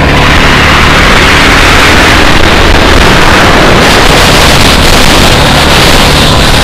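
Go-kart engine running hard at speed, heard from the driver's seat, loud and steady.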